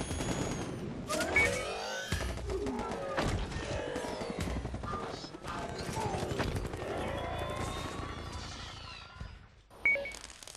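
Sound effects played back from a computer sound collection: dense rapid crackling like gunfire, mixed with sweeping electronic tones and a short high beep that recurs near the end.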